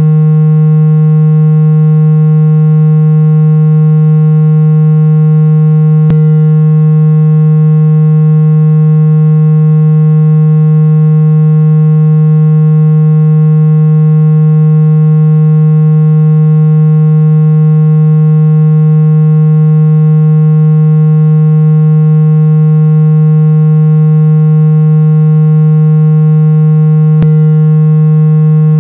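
Steady, loud synthesized low tone with a buzzy edge from many overtones, held unchanging at one pitch, played as an ear-treatment sound; a faint click comes twice.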